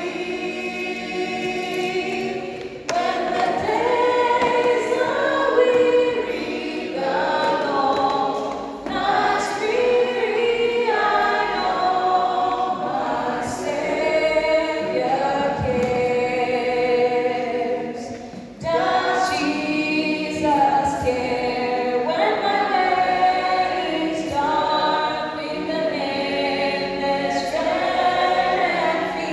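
Women singing a hymn a cappella in harmony, in long held phrases with brief pauses between them.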